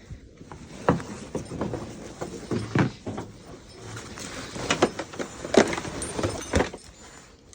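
Metal buckles and clips on horse blankets clinking and knocking irregularly as the blankets are handled and put away.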